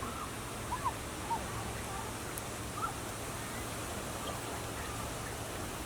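Steady outdoor background hiss with a low hum, and a few faint short chirps, mostly in the first three seconds.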